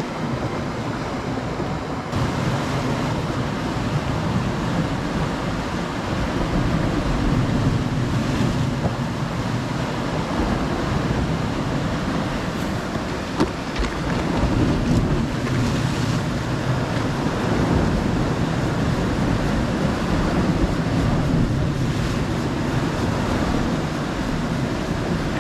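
Sea waves washing against a rocky shore in a steady, swelling rush, with wind buffeting the microphone.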